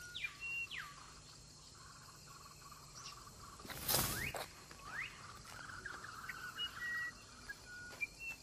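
Faint forest ambience with bird calls: several whistled notes that slide down in pitch, a couple that rise, and short high chirps, over a steady low hum. A brief burst of noise about four seconds in is the loudest sound.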